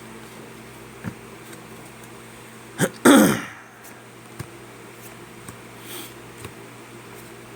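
A man clears his throat once, about three seconds in, over a low steady room hum and a few faint clicks.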